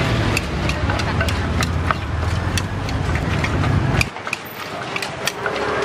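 Wooden pestle and spoon knocking in a clay mortar, a run of sharp, irregular knocks, over a low engine rumble that stops suddenly about four seconds in. After that come lighter taps as a knife cuts ingredients over the mortar.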